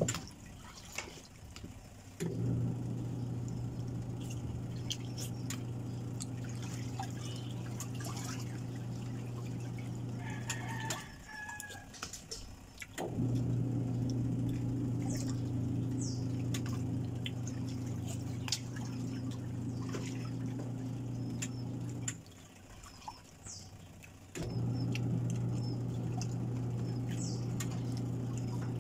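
A steady mechanical hum that starts about two seconds in, cuts out twice for about two seconds and comes back each time, with a spoon clicking and scraping in a plastic bowl as food is stirred and eaten. Short high chirps of birds come through now and then.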